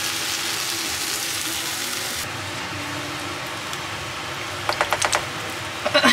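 Food sizzling in a frying pan as cream is poured over sautéed onions, tomatoes and mushrooms; the high hiss drops off about two seconds in. Near the end come a quick run of light clicks and then another short cluster: wooden spoon and spatula knocking against the pan.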